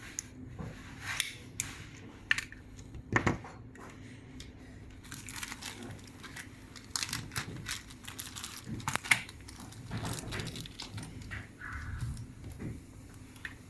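Fiber-optic drop cable being stripped by hand: irregular faint crinkling, scraping and clicking of the plastic jacket and the stripping tool.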